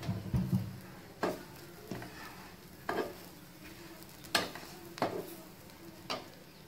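A wooden spoon scraping and stirring grated coconut and whole spices as they dry-roast in a nonstick frying pan, about seven strokes at irregular intervals of about a second, over a faint steady sizzle. The coconut is being roasted until it turns brown.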